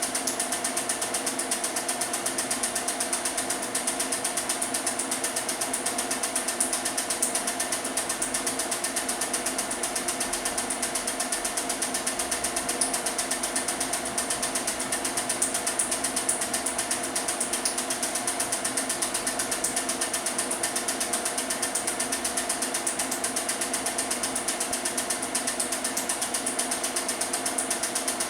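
Film projector running: a steady, rapid, even clatter from its film-advance mechanism.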